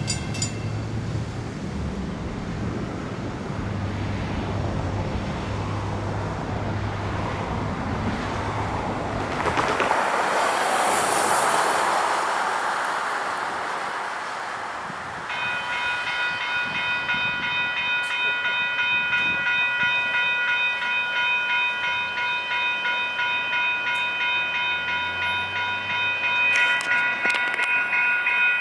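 A train rumbles past with a low diesel drone, and a railroad crossing bell that was ringing stops about half a second in. After a brief rush of noise, another crossing's warning bell starts ringing steadily about fifteen seconds in as its signals activate, and grows louder near the end.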